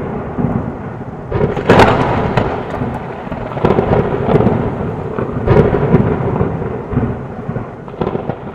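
Thunderstorm: rolling thunder over steady rain, with louder peals swelling up about two, four and five and a half seconds in.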